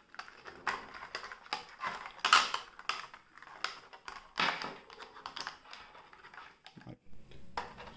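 Small plastic parts and packaging being handled: irregular crinkles, clicks and taps as the lavalier mic's accessories are taken out of their bag.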